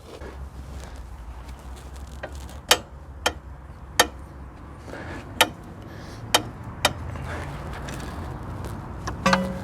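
Sharp, separate metal clicks, about seven spread irregularly, from a ratchet wrench with an 18 mm socket and extension bar working at a tight lower control arm bolt that will not yet turn.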